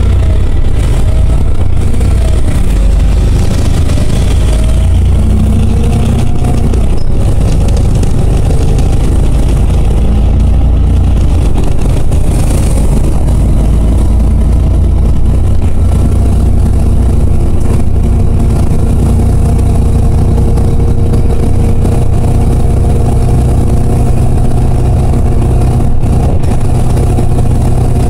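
A LiAZ 5292.60 city bus's diesel engine and drivetrain, heard from inside the passenger cabin: a loud, continuous low drone. Its pitch rises and falls over the first few seconds as the bus accelerates, then holds steady at cruising speed, with road noise underneath.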